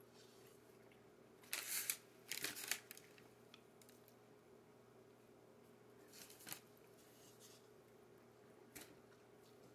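Near silence with a steady faint hum, broken by a few short soft rustles, two close together between about one and a half and three seconds in and one more about six seconds in: hands tearing pieces off a pastry on a paper plate.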